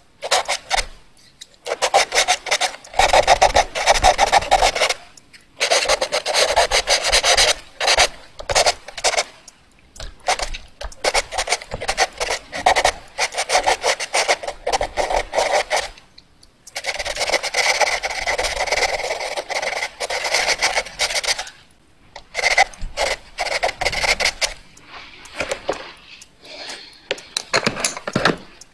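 Fast drawing on paper: a rapid run of scratching, rubbing strokes, coming in bursts of a few seconds with short pauses between them.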